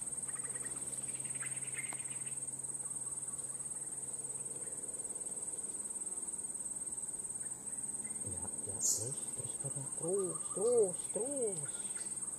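Insects trilling without a break in one steady, high-pitched tone, with a few short murmured sounds from a man's voice near the end.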